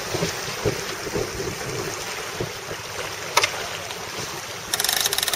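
Wind and water rushing past a Melges 24 racing keelboat under sail, with wind buffeting the microphone and a few low thumps in the first second or so. A single click past the middle and a quick run of rapid clicking near the end come from deck gear.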